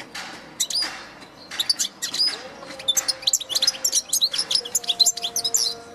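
European goldfinch singing: a fast, tumbling twitter of high, quick notes, starting about half a second in and running on until near the end.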